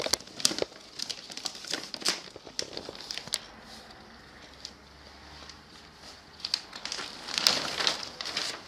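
Crinkling and rustling as calico coated with spray adhesive is pressed and smoothed by hand onto the foam side of an upholstered stool: a series of short crackles, quieter in the middle and louder again near the end.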